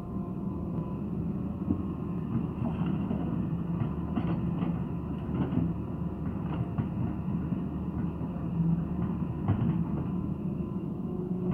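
Hitachi crawler excavator's diesel engine running steadily under load as it swings and empties a bucket of soil into a dump truck, with scattered knocks and clatter of soil and clods landing in the steel truck bed.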